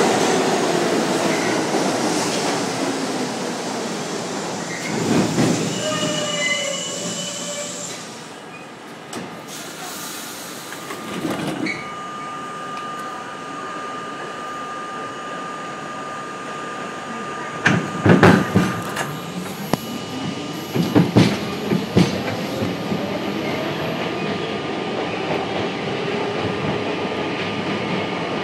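New York City subway trains: a train pulling out of the platform, its rumble fading away. Then a train runs through the station with a steady whine and a quick series of wheel knocks over rail joints, and the run ends with a train accelerating.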